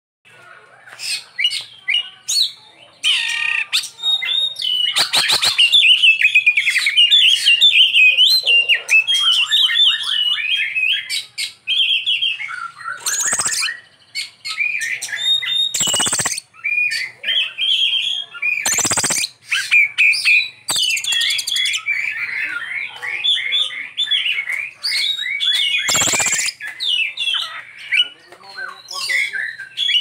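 Oriental magpie-robin (kacer) singing a long, fast, varied song of chirps and whistles, rich in phrases mimicked from other birds. A few short, loud harsh notes break it up.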